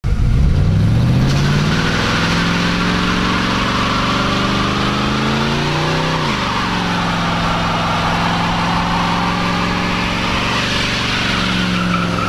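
Crown Victoria 4.6L V8 in a 1961 Ford F100 held at high revs during a burnout, the rear tyres spinning and squealing on pavement. About six seconds in, the revs drop briefly and climb back.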